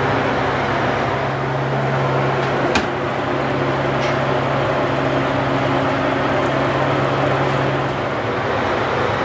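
Steady machine hum from the sweets workshop's equipment, a motor or fan drone with a low even tone. One sharp click comes about three seconds in.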